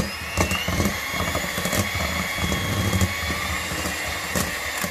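Electric hand mixer running steadily at speed, its motor whining, with its beaters knocking against the stainless steel bowl several times as it beats softened butter.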